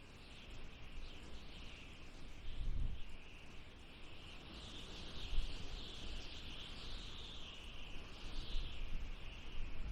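Wind blowing in gusts: a wavering high hiss that swells and fades, with low rumbling surges.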